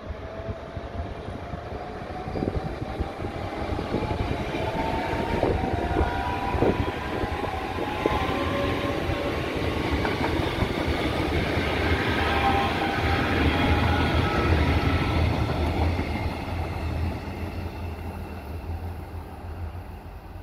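Two coupled CP Class 2240 electric multiple units passing close by. A whine climbs slowly in pitch over the first half, with a few wheel clacks over rail joints early on. The train's rumble peaks about two thirds of the way through, then fades as it runs away.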